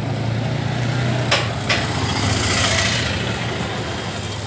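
Steady low hum of a running engine over street noise, with two short sharp clicks about a second and a half in.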